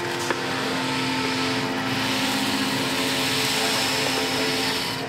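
Flaked barley sliding off a metal hanging-scale pan into a plastic tub: a steady rushing hiss of grain that grows stronger about two seconds in, over a constant machine hum.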